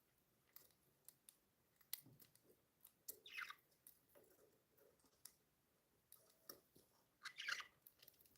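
Pet budgerigars: scattered soft clicks, with two short chirps, one about three seconds in and one near the end.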